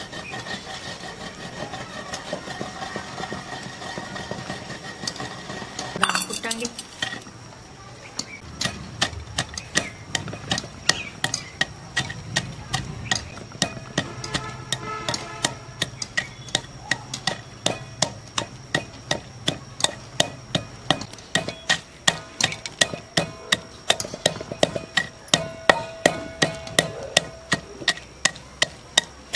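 Puffed lotus seeds (makhana) frying in ghee in a kadhai, stirred with a metal spoon, a steady sizzle. About six seconds in this gives way to almonds being pounded with a wooden pestle in a clay mortar: regular thuds about two a second, growing louder toward the end.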